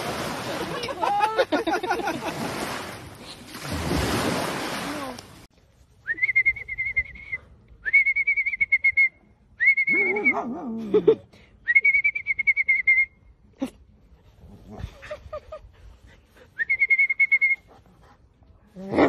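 Small waves breaking on a shore, then a series of five high, steady whistle-like notes, each about a second long, with a short low falling sound near the middle.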